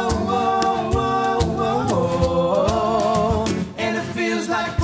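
Live acoustic band music: strummed acoustic guitars over a steady cajon beat, with held wordless vocal notes.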